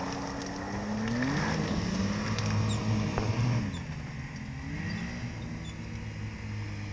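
Snowmobile engine revving hard at full throttle as the sled climbs a steep snow slope. The revs sag about halfway through and then pick up again as it fights for grip.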